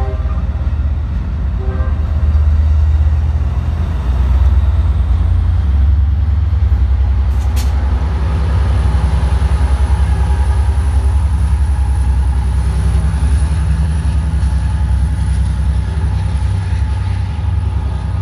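Amtrak Pacific Surfliner train rolling past, its bi-level cars and then its diesel locomotive going by with a loud, steady low drone. The horn's chord cuts off right at the start, and one more short horn note comes about a second and a half in.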